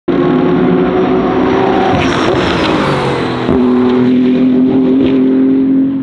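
BMW M4 GT3 race car's twin-turbo straight-six engine at high revs. Its pitch falls between about two and three and a half seconds in, with a few sharp cracks, then holds steady.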